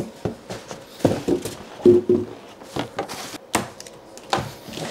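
Unboxing and packaging-handling noises: scattered knocks and thunks with some rustling as a boxed mini-split air conditioner and its packaging are moved about.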